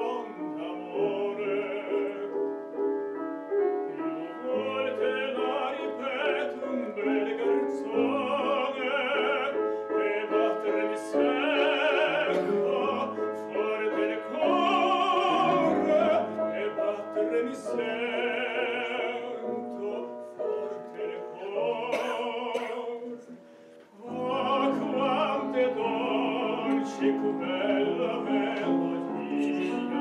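A man sings a classical song with vibrato, accompanied on grand piano. Voice and piano drop away briefly about three quarters of the way through, then carry on.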